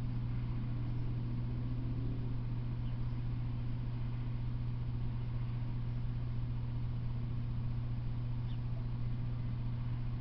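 A steady, unchanging low hum under an even hiss, with one faint, short high chirp near the end.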